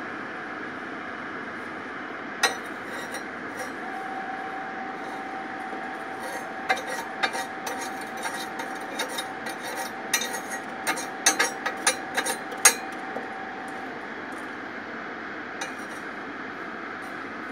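Metal poker scraping and knocking on the perforated steel burner grate of a Kostrzewa Platinum Bio 16 kW pellet boiler, breaking up the thick slag and ash left after a day of burning pellets. Scattered sharp clinks and scrapes start a couple of seconds in, come thickest in the middle and stop a few seconds before the end, over a steady hiss.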